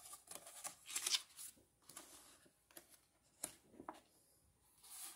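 Pages of a large hardcover book being flipped by hand: a string of paper swishes and rustles with a few sharp flicks, the loudest about a second in.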